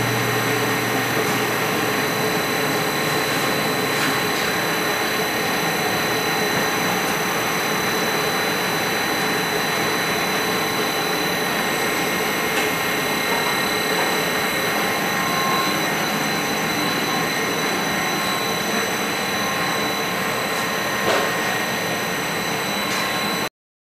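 Steady machine-shop machinery noise: a constant hum and hiss with several thin, high, steady whining tones. It cuts off suddenly near the end.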